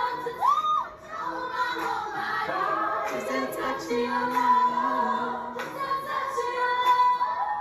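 A woman singing live with backing music, holding long notes, the longest and highest near the end.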